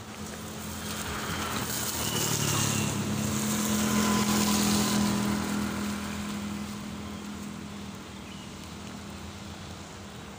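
A motor vehicle passing on a wet road: engine hum and tyre hiss swell, are loudest about four to five seconds in, then fade away.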